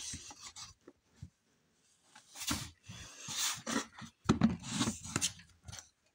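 Pears being handled in a cardboard box: a few light knocks, then three bursts of rustling and scraping as fruit shifts against fruit and cardboard, in the second half.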